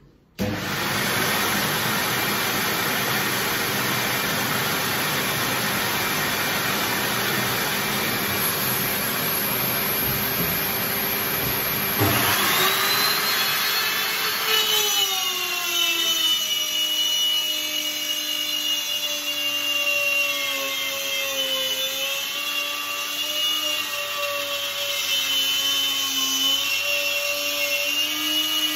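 A steady motor noise runs first. About twelve seconds in, a Makita plunge router starts up with a rising whine. A couple of seconds later its pitch drops as the 8mm straight bit cuts into the wooden cushion capping, and it runs along the rebate under load with a slightly wavering pitch.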